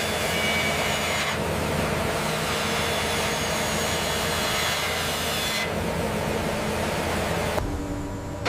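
CNC mill's end mill cutting steel under a coolant spray: a steady rushing hiss with a few faint whistling tones in the first second, the hiss turning duller about five and a half seconds in.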